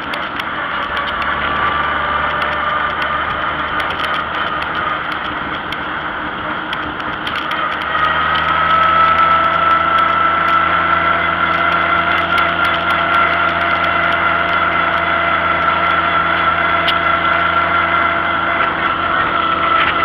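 Vintage farm tractor's engine running steadily under way at road speed. About eight seconds in, its note steps up and gets louder, then holds at the higher speed.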